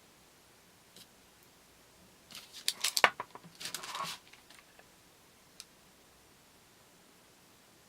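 Short bursts of small clicks and scraping from hands working with kitchen tools and baking things, about two and a half seconds in and again around four seconds, with a single faint tick before and after.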